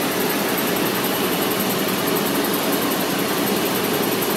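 Steady, unchanging noise of running machinery and ventilation in a submarine's auxiliary machinery room, with a faint high whine.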